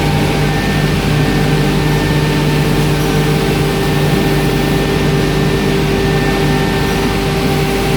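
Homag Optimat KAL 310 edgebanding machine running: a steady machine hum with several held tones over a continuous rushing noise.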